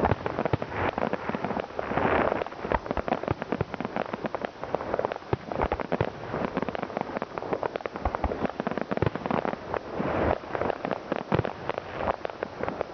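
Fireworks and firecrackers going off in a dense, continuous barrage of sharp bangs and crackles, several a second, with louder swells about two seconds in and again near ten seconds.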